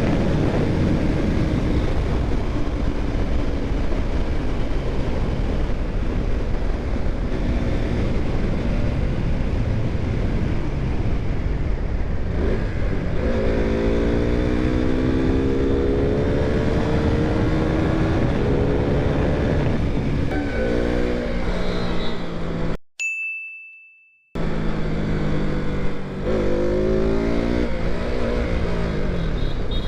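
KTM motorcycle engine running under way, with heavy wind rush on the helmet-mounted microphone. The engine pitch climbs as the bike accelerates about halfway through and again near the end. About three-quarters in, the sound cuts out briefly, leaving a short high beep.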